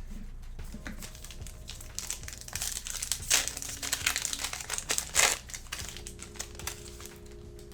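A plastic football-card pack wrapper crinkling as it is torn open and the cards are pulled out. The crinkling is busiest between about two and five seconds in.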